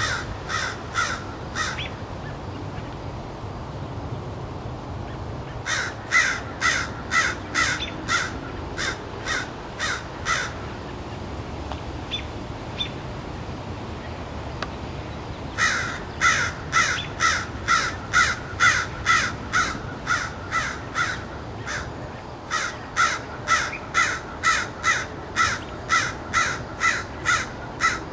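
Crow cawing in repeated bouts of quick, evenly spaced caws, about two to three a second, with pauses of a few seconds between bouts.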